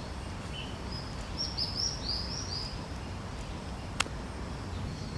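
Outdoor background noise with a bird chirping a quick run of about five high notes a little over a second in. One sharp click comes about four seconds in.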